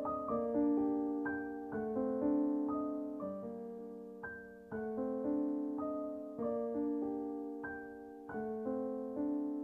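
Background music: slow, gentle keyboard notes, each struck and left to fade before the next.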